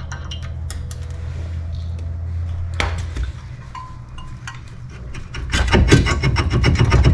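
Metal work on a car's brake rotor: a steady low hum with a few light clicks, one sharp metallic knock about three seconds in, then, from about five and a half seconds, a fast, loud run of metallic impacts.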